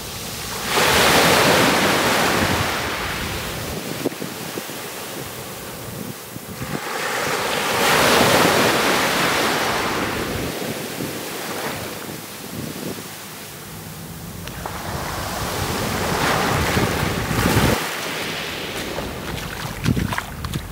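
Small sea waves washing up onto a sandy beach, swelling and fading three times, about seven seconds apart.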